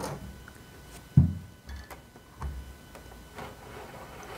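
A few dull thumps and light clicks as a small portable electric sewing machine and a thick towel are handled on a table, the loudest thump about a second in.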